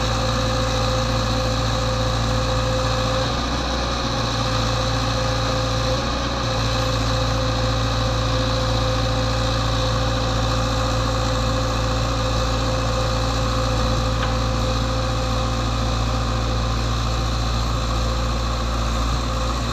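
Old excavator's diesel engine running steadily at one constant pitch, with a steady low rumble and a thin whine above it.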